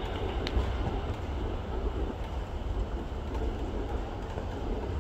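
Steady ballpark ambience in a domed stadium: a low, even rumble with indistinct background noise, and one brief click about half a second in.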